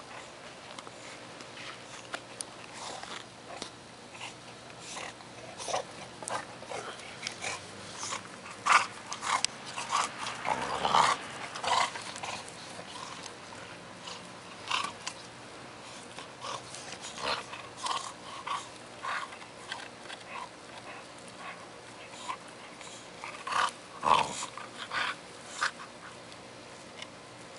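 Bulldog chewing and gnawing a long stick: irregular crunches and cracks of wood, thickest about a third of the way in and again near the end, with the dog growling.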